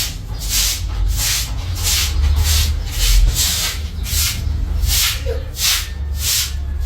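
A brush swept in quick, even strokes, about two a second, each stroke a short hiss, over a steady low rumble.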